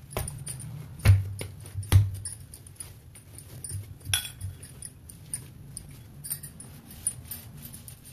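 Soft, oiled bhatura dough being kneaded by hand on a marble rolling board: dull thumps as it is pressed and pushed down, three strong ones in the first two seconds, then lighter ones, with small clicks in between.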